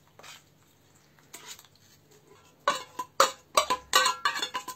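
Metal knocking and scraping on a tin can of pink salmon as the fish is worked out of it into an enamel bowl. It starts with faint clicks, then a little past halfway a quick run of sharp, briefly ringing metallic taps.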